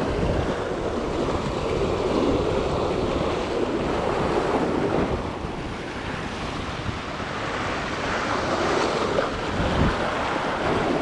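Ocean surf breaking and washing over the boulders of a rock jetty, a continuous rushing that swells and eases, with wind buffeting the microphone.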